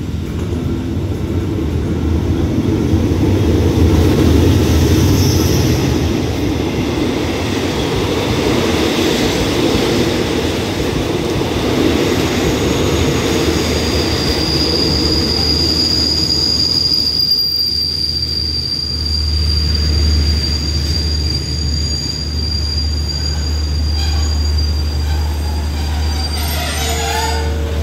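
Express passenger train rolling into the station and braking: a heavy rumble of wheels on rail, loudest in the first few seconds. From about halfway a steady high squeal rises as it slows. Once it draws to a halt, a steady low hum remains.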